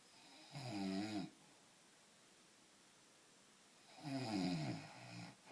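A man snoring in his sleep: two snores about three seconds apart, the second one longer.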